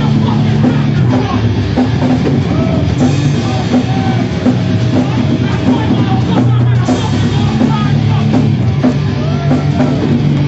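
A hardcore punk band playing loud and live: distorted guitars, bass and a driving drum kit, with a voice shouting over it.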